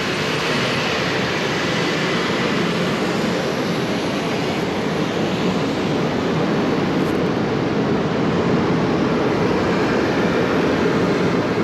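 Allison V12 aircraft engine in a modified pulling tractor running hard at full power under load through a pull, a steady dense roar that grows slightly louder toward the end.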